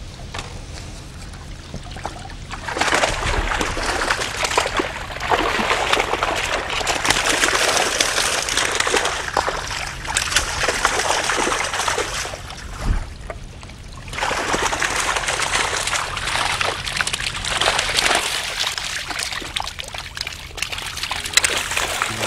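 Water pouring and splashing out of a fishing keepnet as it is hauled up out of the river, in two long spells with a brief lull about 13 seconds in. Near the end the net's end reaches the surface and the fish inside thrash and splash.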